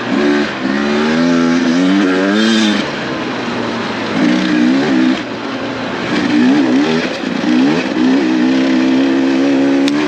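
Two-stroke dirt bike engine revving up and easing off several times under race riding, then holding a steady pitch near the end, over a steady rushing noise.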